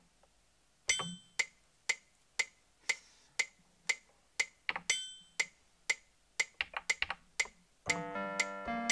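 Yamaha PSS-A50 mini keyboard starting a drum pattern after a button click, with sharp hits about twice a second and some quick extra hits in between. Near the end, chords played on the keys join the beat.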